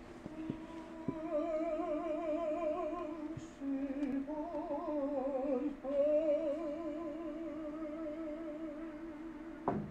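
A solo singer holding long notes with a wide, even vibrato, in three phrases that shift pitch at about three and a half and six seconds in. A sharp click sounds just before the end.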